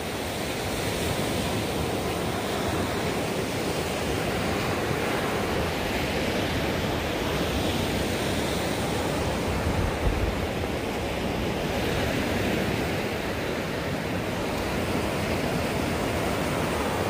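Surf breaking and washing up onto a sandy beach: a steady rushing noise, with some wind on the microphone.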